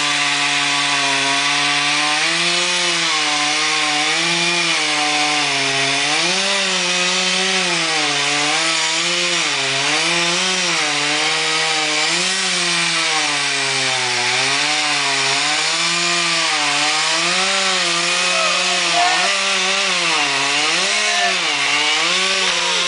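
STIHL MS391 two-stroke chainsaw running at high revs as it cuts through a tree trunk, its pitch rising and falling every second or two as the load on the chain changes.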